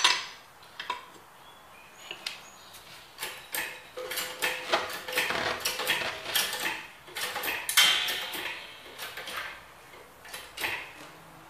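Metal clinks and rattles as a socket on an extension bar turns out the lug bolts of a car's alloy wheel. A sharp clink comes at the start, then irregular clicking that is busiest in the middle.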